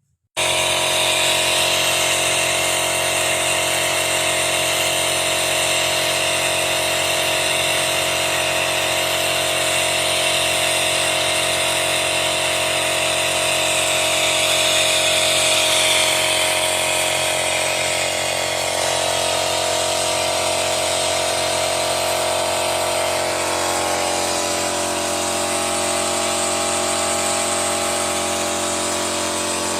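A motor-driven machine running steadily with a constant hum and whine, switched on abruptly about half a second in.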